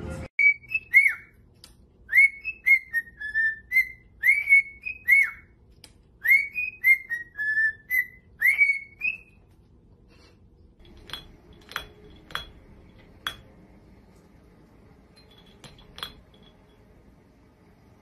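Cockatiel whistling a tune: four repeated phrases of quick rising, swooping notes over about nine seconds. A few faint, sharp clinks follow later.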